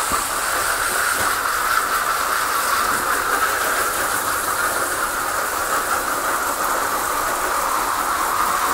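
Garden hose pistol-grip nozzle on a shower setting, spraying water steadily onto plastic seed-starting trays of potting soil to pre-moisten the soil.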